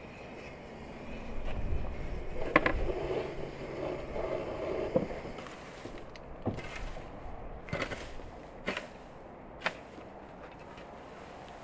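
Long-handled garden tool scraped and dragged through dry grass and soil in short strokes, about once a second, in the second half. Before that, a stretch of rustling with a couple of sharp knocks.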